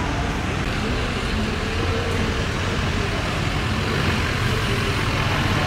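Engine of a lifted Chevrolet Silverado pickup on oversized wheels running steadily as the truck rolls slowly past at low speed.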